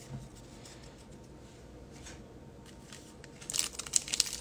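Faint handling of trading cards, then, starting near the end, a quick run of crisp crinkles as a foil card pack wrapper is handled.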